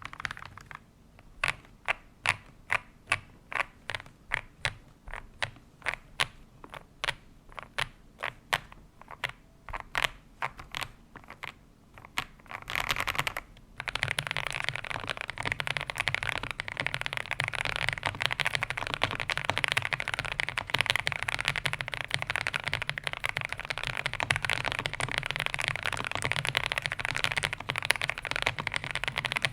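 Ajazz AK820 Pro mechanical keyboard with lubed KTT Kang White linear switches and cherry-profile keycaps being typed on. For the first twelve seconds single keystrokes come about two a second; then, after a short flurry, fast continuous typing with keystrokes running together.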